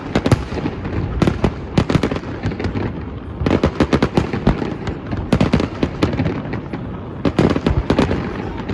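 Fireworks display: rapid clusters of loud bangs and crackles, many shells bursting close together, over a continuous rumble of echoing explosions.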